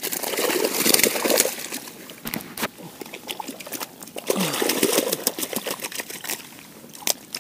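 Water splashing and trickling as a large carp is hauled out in a landing net, with scattered clicks from handling.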